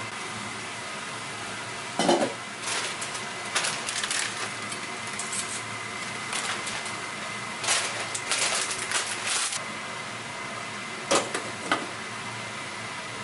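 A stainless steel pot and its glass lid being handled, in scattered clinks and clatters over a steady hiss. Near the end come two short sharp clinks as the lid is set back on the pot.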